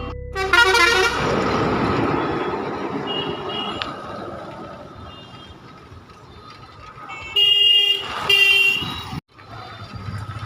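Road traffic with vehicle horns honking, including two short honks near the end.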